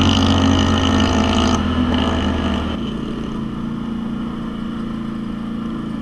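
Polaris Sportsman XP 1000 ATV's twin-cylinder engine running under way. It eases off about a second and a half in, then drops to a lower, steady running sound from about three seconds in.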